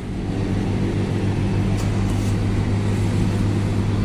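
Scania K360iB coach's diesel engine idling, a steady low drone that holds even throughout.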